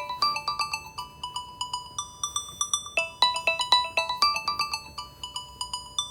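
Apple Watch ringtone playing from the watch's speaker: a quick, tinkling melody of short bell-like notes, several a second, repeating.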